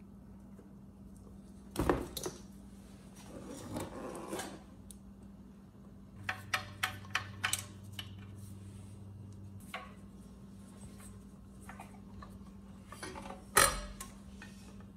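Metal tools and engine parts clinking and knocking as a small generator engine is unbolted and shifted out of its frame, with a sharp knock about two seconds in, a run of quick clicks in the middle and a louder knock near the end.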